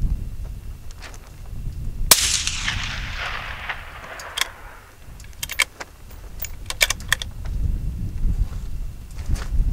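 A single rifle shot from a Ruger American Gen II bolt-action rifle in .223 Remington, about two seconds in, with a long echo dying away. A few seconds later comes a quick run of sharp metallic clicks as the bolt is worked to chamber the next round.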